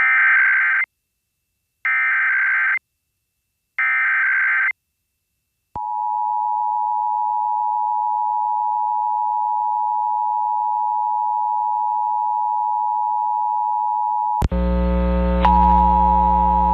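EAS SAME header: three short bursts of warbling data tones, each under a second, about two seconds apart. Then the EAS attention signal, a steady two-tone beep held for about eight and a half seconds and cutting off abruptly. Near the end a buzzy hum with several steady tones takes over.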